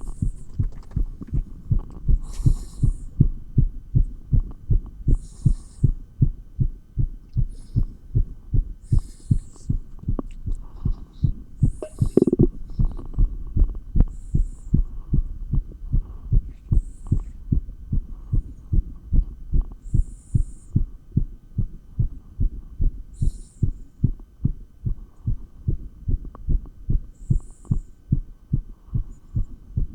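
Heartbeat picked up through a stethoscope on the chest during weight exercise: a fast, regular run of low thumps, about two a second. A soft hiss comes in every couple of seconds.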